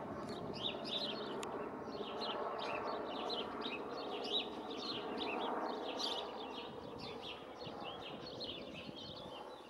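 Helicopter engine and rotor noise passing overhead, a steady drone that slowly fades as it moves away. Many small birds chirp throughout.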